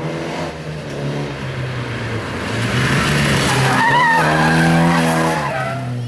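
Opel Manta rally car's engine revving hard with several gear changes, the revs breaking and climbing again. About four seconds in the tyres squeal and scrub as the car is thrown sideways through a hairpin, then the engine pulls hard out of the bend. Loudest in the middle.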